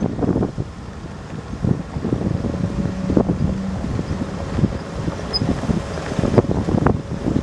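Military vehicles driving over a rough dirt track: a steady low engine and road rumble, with a few sharp knocks and rattles as they jolt over bumps.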